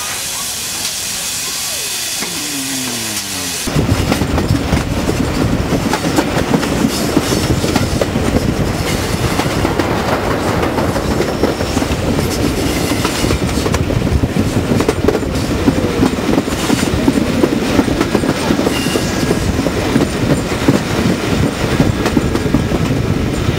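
A steam hiss, then about four seconds in an abrupt change to the loud, continuous rumble and rattle of a train running on the rails, with clickety-clack from the wheels.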